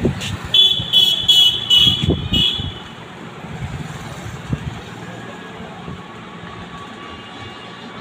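A high-pitched horn tooting about five times in quick succession within the first three seconds, over steady street traffic noise.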